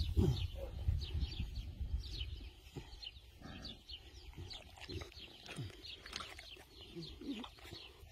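Small birds twittering in quick, high, falling chirps, with a few short, low, falling whines from puppies at play.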